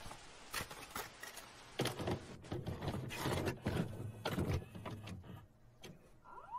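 Video-cassette-recorder sound effects: static hiss with a run of mechanical clicks, clunks and whirring as a tape is loaded and set to play. Near the end a rising cry begins, the start of a cat's meow.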